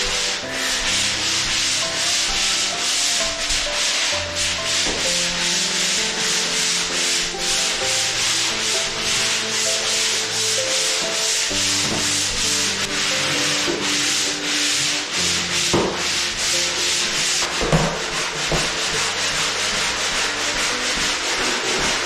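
Pole sander with a sandpaper pad stroked back and forth across a patched wall: a steady scratchy hiss that pulses with each stroke, about two strokes a second, as the wall is sanded smooth for painting.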